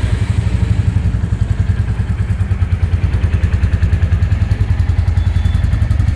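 2024 Royal Enfield Bullet 350's 349 cc single-cylinder engine idling just after being started. Its exhaust gives a steady, even pulsing beat.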